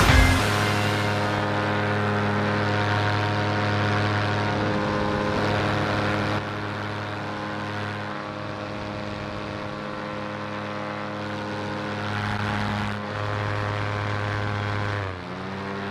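Paramotor's backpack engine and propeller droning steadily in flight. Near the end the pitch dips briefly and comes back up.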